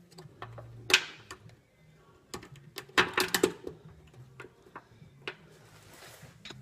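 Irregular metal clinks and clacks of running-board brackets and bolts being handled and fitted, with a loud clack about a second in and a quick cluster of knocks around three seconds in.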